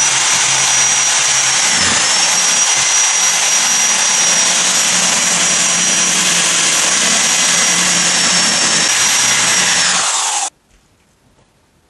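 Corded power drill running steadily with a high whine as its bit bores into pumpkin flesh to widen the eye holes, the pitch sagging briefly about two seconds in; it stops suddenly about ten and a half seconds in.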